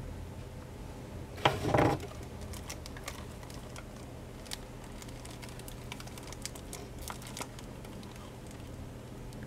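Plastic packaging crinkling and rustling as items are handled, with one louder rustle about one and a half seconds in, then scattered light clicks and crinkles over a low steady hum.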